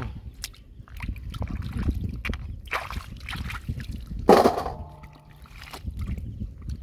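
Hands sloshing and splashing in shallow tide-pool water while feeling along the bottom for clams, with scattered small splashes and one louder splash a little past four seconds in.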